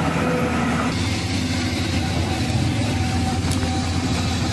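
Steady low engine hum, like a motor idling, with an even pitch and no revving.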